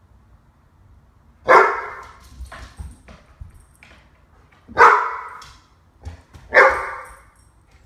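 Dog barking: three loud single barks, the first about a second and a half in and the last two close together near the end, with a few faint sounds between them.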